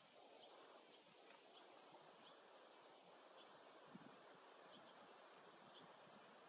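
Barn swallow fledgling giving short, high, faint chirps, irregularly about once a second, over a soft background hiss.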